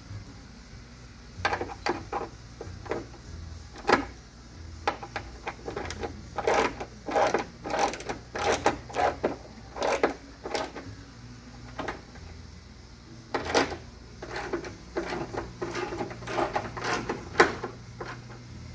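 Irregular clicks, taps and rattles of metal parts and cables being handled inside a truck door, in clusters with short pauses between them, over a steady low hum.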